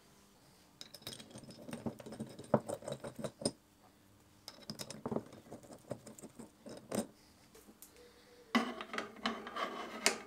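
Machined metal parts being handled and set down: light metallic clicks, clinks and scrapes in three short bursts, about a second in, around five seconds in, and near the end.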